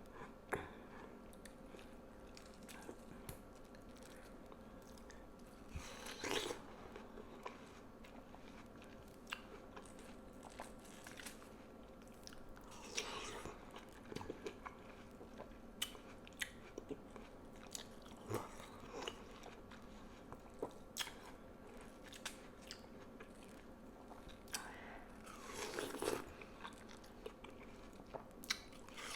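Juicy watermelon being bitten and chewed close to the microphone: three bigger, crisp crunching bites spaced several seconds apart, with wet chewing clicks and smacks in between.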